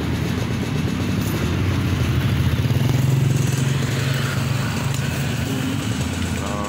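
A motorcycle passing close by on the street. Its low engine hum swells to a peak about three seconds in, then fades.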